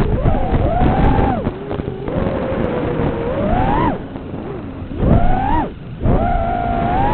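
FPV quadcopter's motors whining, the pitch rising and falling as the throttle is punched and cut: a climb that cuts off sharply about four seconds in, then two more quick surges, over heavy wind rumble.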